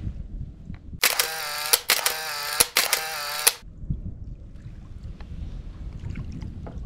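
Camera-shutter sound effect, three shots in quick succession: a sharp click each time followed by a short pitched motor-drive whirr. It runs from about a second in to about three and a half seconds, between stretches of wind and water noise.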